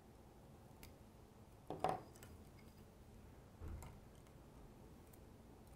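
Quiet handling at a fly-tying vise: a faint click, a short louder tap near two seconds in and a dull bump a couple of seconds later, as thread is worked around the fly's head.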